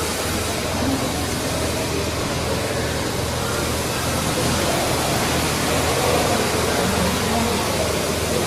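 Steady machine noise: an even hiss over a low, regularly pulsing hum.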